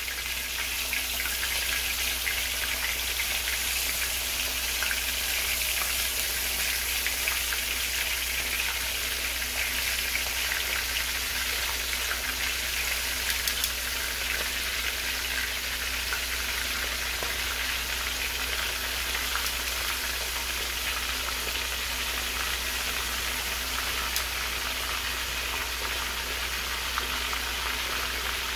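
Chicken thighs shallow-frying skin side down in about half an inch of hot oil in a cast iron skillet: a steady sizzle with fine crackling pops.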